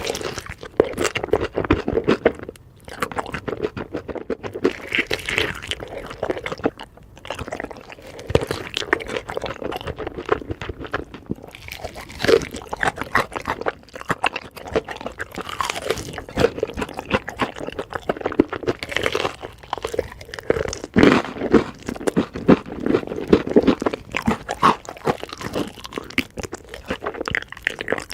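Close-miked crunchy bites and chewing of crispy fried chicken, with dense irregular crackles and crunches.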